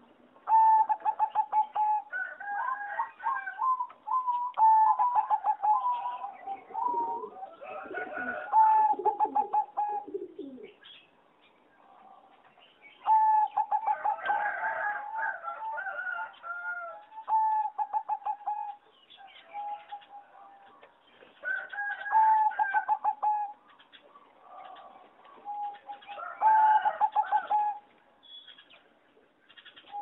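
Competition-bred singing zebra dove cooing in about seven phrases. Each phrase is a rapid run of short staccato notes followed by a rolling warble, with pauses of a second or two between phrases.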